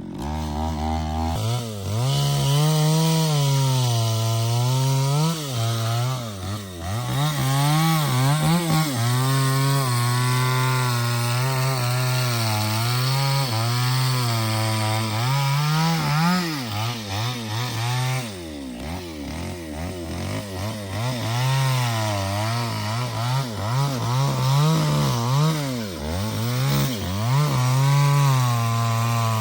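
Chainsaw cutting through hardwood, its engine pitch repeatedly sagging and picking up again as the chain works under load. There is a brief quieter dip about two-thirds of the way through.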